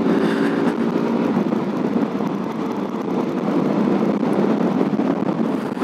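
KTM RC 200's single-cylinder engine running steadily while the motorcycle rides along, with wind and road noise rushing over the microphone. The engine's tone is clear for about the first half-second, then sinks into the wind rush.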